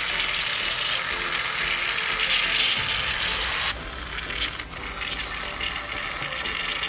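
Two aerosol cans of shaving cream spraying foam at once, a steady hiss. About four seconds in it drops to a quieter hiss and carries on.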